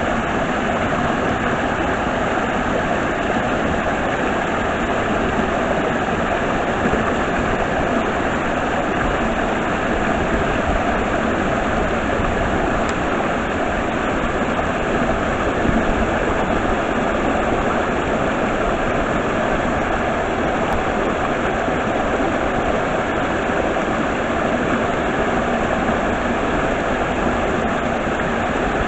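Steady rushing water of a stream at a waterfall.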